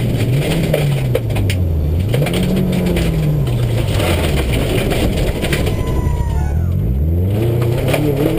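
Subaru rally car's engine at full stage pace, heard from inside the car, its revs rising and falling several times and climbing again near the end. Loose gravel rattles and pings against the car throughout.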